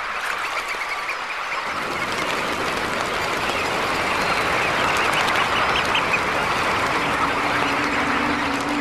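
A large flock of red knots calling in a dense chatter of many short chirps, growing louder as the flock lifts into the air, with a rushing noise filling in about two seconds in. A low steady tone comes in near the end.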